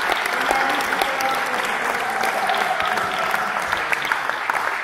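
Applause, steady hand clapping, with a few voices mixed in.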